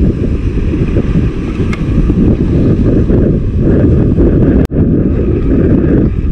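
Wind buffeting a chest-mounted camera's microphone: a loud, steady, low rumble that cuts out for an instant about four and a half seconds in.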